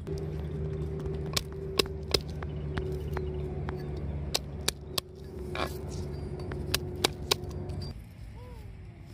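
Cleaver striking a wooden chopping board while garlic is chopped, about ten sharp knocks at irregular intervals. A steady low hum runs underneath and stops about eight seconds in.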